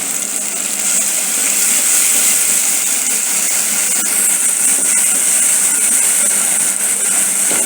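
Onions and tomatoes sizzling steadily as they fry in a pan, getting a little louder about a second in.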